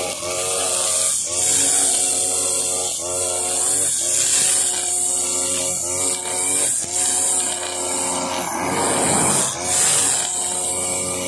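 Husqvarna 542RBS backpack brush cutter's two-stroke engine running at high speed while its 2.2 mm nylon line cuts grass, with a steady high whir. The engine note dips and recovers every second or two as the line is swung through the grass.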